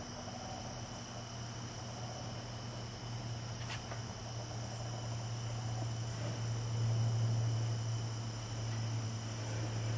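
Crickets trilling steadily, over a louder low, steady hum.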